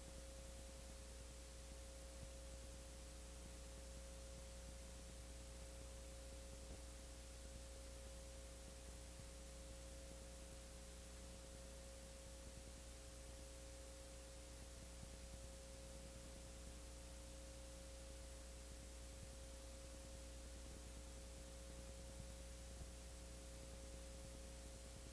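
Near silence: a steady electrical hum with a faint high tone over an even hiss, and no other sound.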